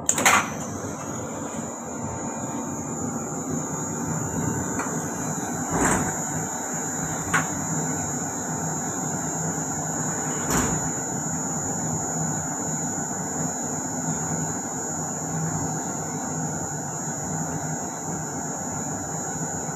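Goods lift running, driven by a 2 hp ADK brake motor through an NMRV 090 worm gearbox (ratio 1:60) on an inverter. It makes a steady mechanical hum with a high, steady whine over it. A few sharp knocks come through: one right at the start, and others about six, seven and ten and a half seconds in.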